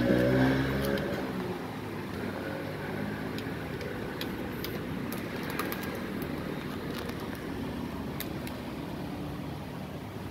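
Steady hum of road traffic, with scattered light clicks and taps from food being served at a street-food cart.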